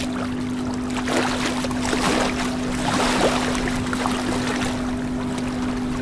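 Aquarium air bubbling and gurgling from the sponge filters and air line, over a steady low hum. The bubbling is busier and louder from about one second in to about three and a half seconds.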